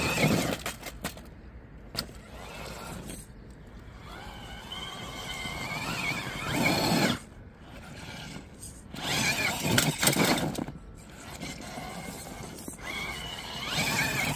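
RC rock crawler's Fusion 1800 brushless motor whining in several bursts of throttle as it climbs a steep rock face, the pitch rising and falling with each push, with a few sharp knocks from the crawler against the rock.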